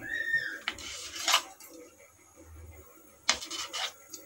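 Kitchen knife slicing through a block of paneer and scraping against the ceramic plate beneath it, in short strokes about a second in and again about three seconds in. There is a brief squeak at the start.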